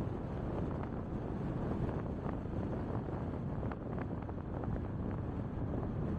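Steady road and wind noise from a car driving along an expressway, with wind on the microphone and a few faint light ticks now and then.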